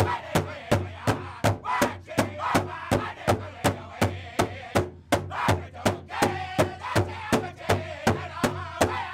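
Pow wow drum group singing around a large shared hand drum, the men striking it in unison with padded drumsticks in a steady beat of about three strokes a second.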